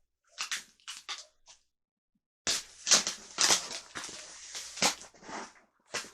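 Rustling, scraping and knocking of cardboard packaging being handled and opened: a few short bursts, a brief pause, then a denser run of handling noise from about two and a half seconds in.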